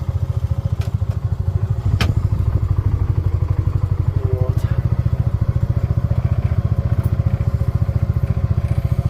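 Vehicle engine running steadily at low revs, a fast, even low pulsing beat, with a sharp click about two seconds in.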